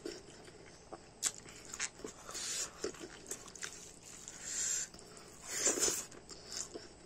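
Close eating sounds: a man chewing and lip-smacking a mouthful of rice and curry, with several sharp wet clicks and short breathy hisses.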